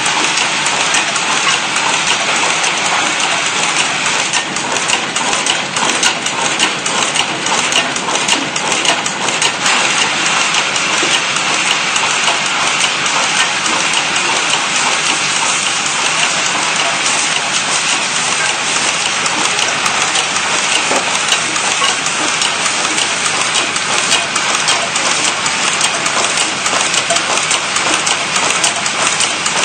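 Automatic PCB component insertion machine running, a steady dense rattle of many small metallic clicks from its indexing turret and parts handling.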